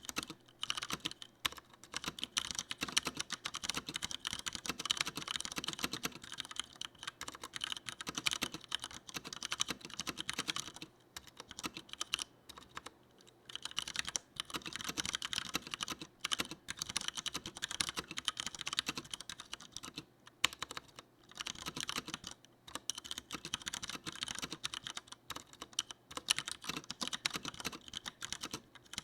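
Continuous fast typing on a Leopold FC900R mechanical keyboard with Cherry MX Brown tactile switches: a dense stream of keystrokes, broken by short pauses a few times.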